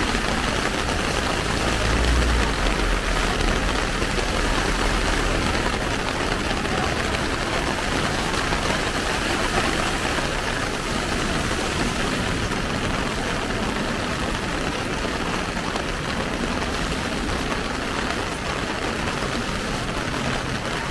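Heavy rain with large drops pattering on an umbrella: a steady, loud hiss. A low rumble joins it from about two to five seconds in.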